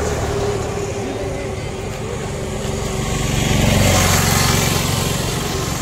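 Road traffic going by, one vehicle's engine and tyre noise swelling to its loudest about four seconds in and then fading.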